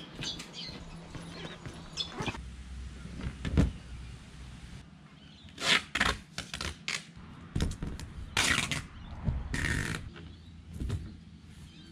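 Footsteps, then the rustling and knocks of a plastic tarp being handled and spread over the back of a car, in short irregular bursts.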